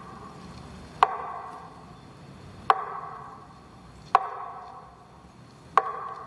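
Single metronome beats over a loudspeaker marking a minute of silence: four evenly spaced sharp ticks, about one every one and a half seconds, each with a short ring.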